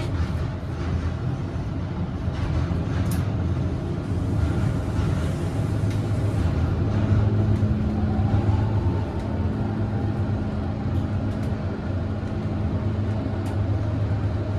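Elevator car travelling down: a steady low hum, with a slightly higher hum joining about halfway through and a few faint clicks.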